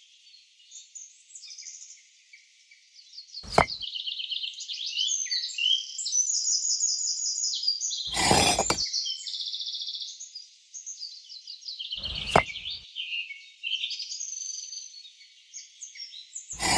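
Small birds chirping and trilling continuously in quick, repeated notes, broken by a few short, sharp knocks, one of them a little longer, spread through and one at the end.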